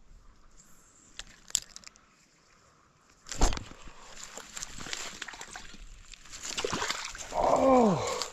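A few small clicks, then a loud splash-like hit about three seconds in, followed by several seconds of sloshing and rustling. Near the end comes a short falling vocal cry.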